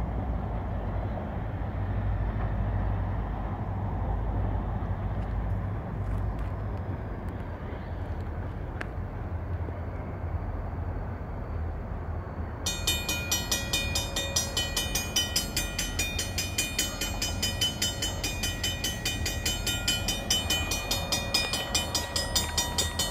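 Diesel locomotive rumbling low as it approaches. About halfway through, its bell starts ringing in quick, even strokes.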